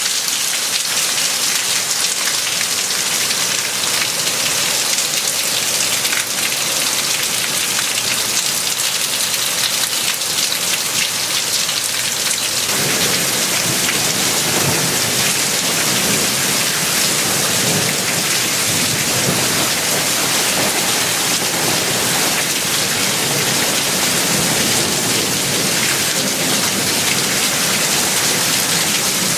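Steady rain falling and pattering on surfaces, with a fuller, deeper sound from about twelve seconds in.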